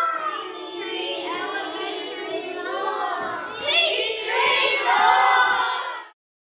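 A group of children shouting and cheering together in high, overlapping voices, with a louder burst about three and a half seconds in; the sound cuts off suddenly near the end.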